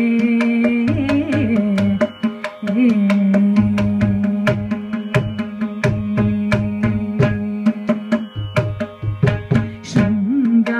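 A woman singing Carnatic music, holding long notes with ornamented slides between them, accompanied by a mridangam played in a steady stream of crisp strokes.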